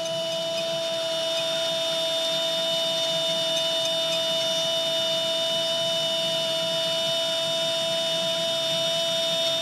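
Football commentator's long drawn-out "gooool" cry, held on one steady note, over a cheering stadium crowd.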